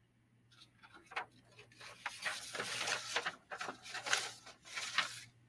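A pen scratching on a writing surface in short, uneven strokes while writing, starting about half a second in and getting louder.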